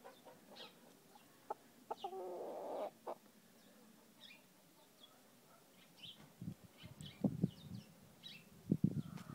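A chicken gives one drawn-out call lasting about a second, about two seconds in. Faint high chirps of small birds are heard throughout, and soft low rustling and knocks come in the last few seconds.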